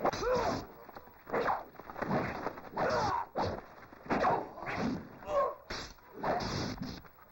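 Sword-fight sound: men shouting short battle cries, about ten yells in quick succession, mixed with swishes and thuds of the fighting.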